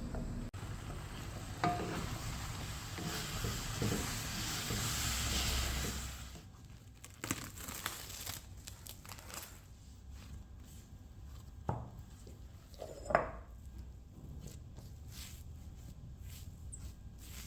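Kitchen handling noises while preparing food: a steady rustling for about six seconds, then scattered light taps and knocks, two of them louder near the middle.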